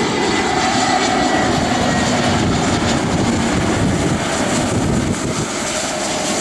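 Twin Rolls-Royce BR710 turbofans of a Bombardier Global Express business jet on landing approach: a loud, steady jet rumble with a whine that slides down in pitch over the first couple of seconds. It eases off slightly about five seconds in.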